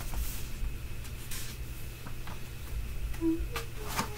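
A paperback book's cover and first page being opened and turned by hand: a few soft paper rustles, one near the start, one about a second and a half in and one near the end, over a steady low hum.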